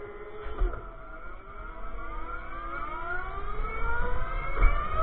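Electric go-kart motors whining, several overlapping whines rising in pitch and getting louder as the karts accelerate. There are two low thumps, one about half a second in and one near the end.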